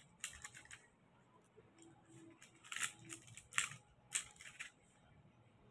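Metallic foil paper crinkling in short, crisp bursts as a foil Christmas ball is handled in the hands, the loudest bursts around the middle.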